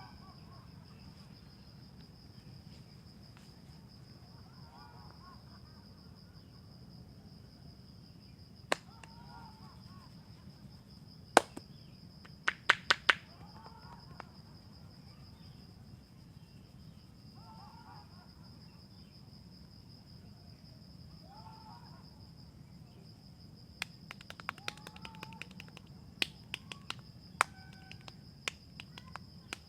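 Sharp snaps and clicks from a barber's hands during a head massage. There are a few single snaps, a quick run of four about a third of the way in, and a scattered series near the end. Under them runs a steady high insect drone, and a bird calls faintly every few seconds.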